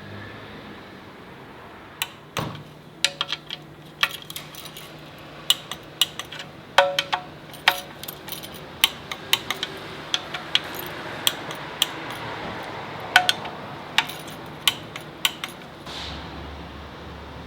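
Hand tools and metal parts clinking and tapping irregularly, a few strikes ringing briefly, over a faint low steady hum.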